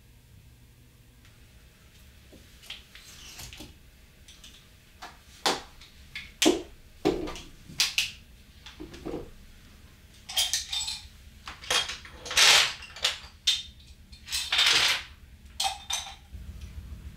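Irregular clicks, knocks and short rustles of a phone and a flexible tripod being handled and set down on a wooden desk, starting a couple of seconds in and getting busier in the second half.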